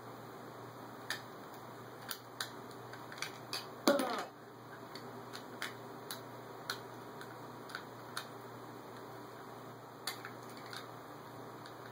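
Scattered light clicks of a small plastic action figure being handled, its jointed parts snapping as they are moved, with one louder, short pitched sound about four seconds in.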